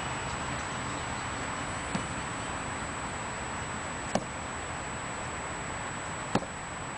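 Back-leg front kicks hitting a foam kick shield: three short, sharp smacks about two seconds apart, the first faint and the next two louder, over steady background hiss.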